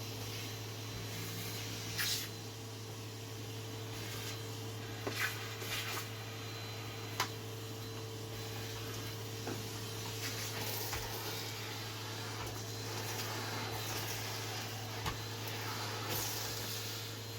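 Household tidying: scattered knocks and clatters of objects being picked up and set down, over a steady low hum.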